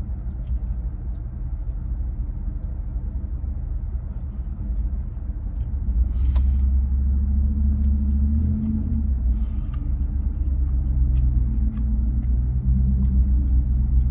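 Car engine running, heard inside the cabin as a steady low rumble that grows a little louder about six seconds in, with a few faint clicks over it.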